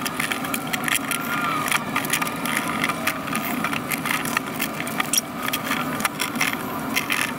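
Plastic panels of a roll-away laying-nest box knocking and clicking against each other as the box is put together, over a steady background noise.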